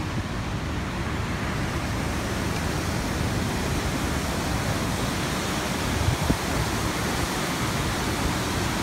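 Swollen river water rushing through an open sluice gate, a steady rush of churning white water. Two brief knocks about six seconds in.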